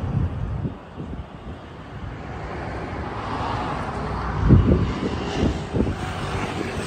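Wind buffeting the microphone in uneven low gusts, strongest about halfway through, over a steady wash of distant traffic that swells and fades.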